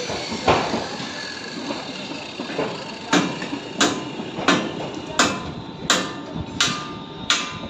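Hammer blows on metal at a steady pace, about three every two seconds, each with a short metallic ring, starting about three seconds in; a single dull thud comes shortly after the start.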